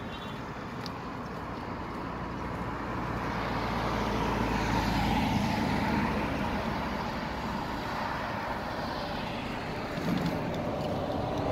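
A car driving past on the road, its tyre and engine noise rising to a peak about halfway through and then fading as it moves away.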